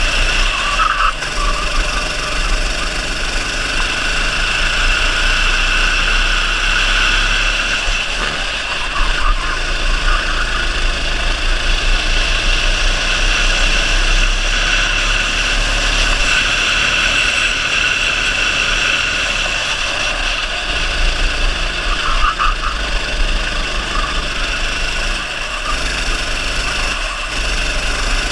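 Go-kart engine running hard around the lap, its revs rising and falling a little through the corners, heard from the driver's helmet camera with wind rumbling on the microphone.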